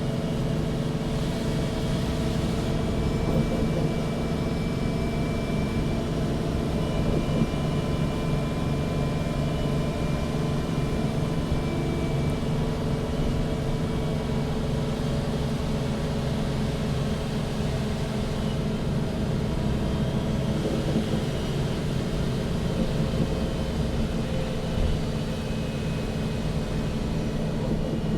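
Interior sound of a MAN NG 313 CNG articulated city bus: its natural-gas engine running at a steady speed, a steady low drone with faint high whines above it.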